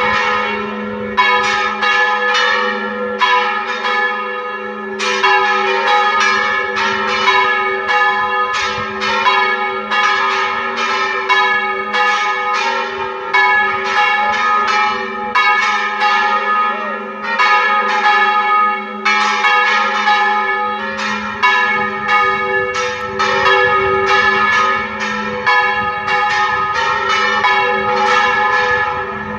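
The church tower's bells are rung all together in a Spanish volteo general, the bells swung full circle. It makes a continuous, dense run of overlapping strikes several times a second over the steady hum of the larger bells.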